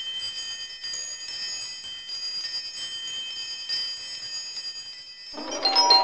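Shimmering, high-pitched chime sound effect like wind chimes, ringing steadily. About five seconds in, a louder, brighter chime jingle with lower notes comes in as an intro sting.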